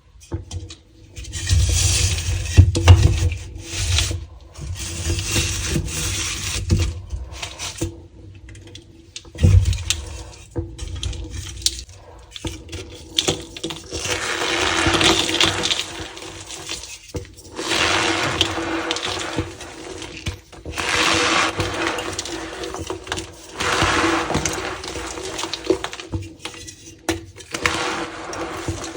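Reformed gym chalk blocks being crushed and crumbled by hand, in repeated squeaky, crunchy bursts of a second or more each. A few dull thuds come in the first ten seconds.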